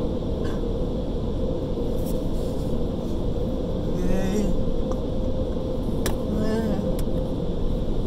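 Steady low rumble of an automatic car wash, heard from inside the car's cabin, with a steady hum through it. Two short wavering voice-like sounds come about four and six and a half seconds in.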